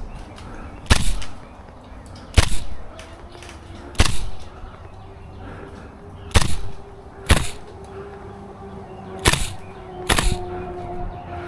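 Airsoft gun firing single shots, seven sharp cracks at irregular intervals of one to two and a half seconds.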